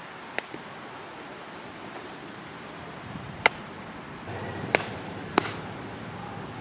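Four sharp cracks of a softball striking bat and leather glove during infield practice, the loudest about halfway through and two more close together near the end, over steady wind noise.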